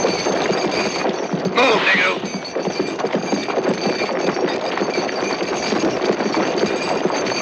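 Film soundtrack of a crowd of chained people being marched along: continuous shuffling and clinking, with a voice calling out briefly about two seconds in.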